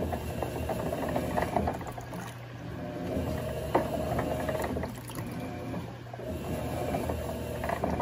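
Electrolux Turbo Economia LTD06 top-loading washing machine agitating a load of clothes in water: motor hum and churning that swell and ease in surges about every three seconds.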